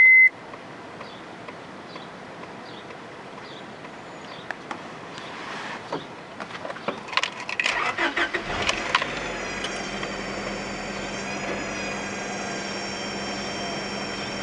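1998 Honda Prelude's H22A4 2.2-litre four-cylinder engine cranked over on the starter for a couple of seconds, catching about halfway through, then idling with a steady high-pitched whine. The owner traces the whine to the oil pan and suspects a failing oil pump, since it came with an oil-pressure light that flickers at idle.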